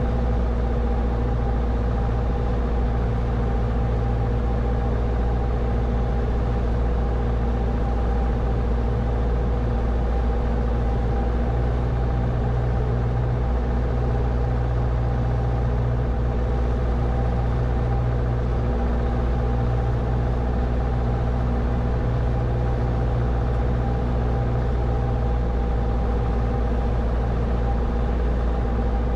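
Grumman AA-5's four-cylinder Lycoming engine and propeller droning steadily, heard in the cabin on final approach.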